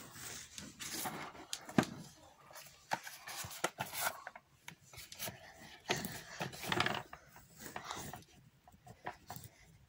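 Objects handled on a wooden tabletop: paper and a cardboard box shifted and slid about, giving irregular rubbing, scraping and light knocks.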